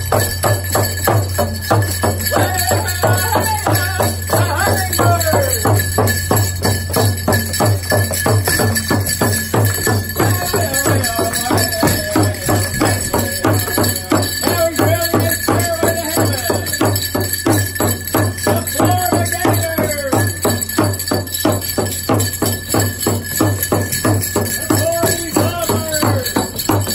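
Native American hoop-dance song: a fast, steady drumbeat with a chanting voice over it.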